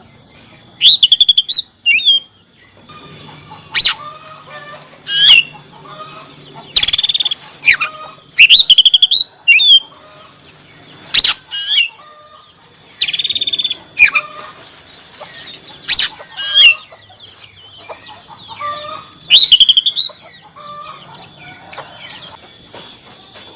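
Oriental magpie-robin (kacer) singing: loud, short phrases of high whistles and rapid trills every second or two, growing sparse near the end.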